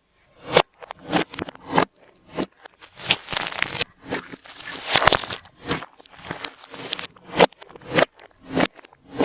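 Slime with glitter and makeup mixed in being squished and worked by hand, giving irregular crackles and sharp pops.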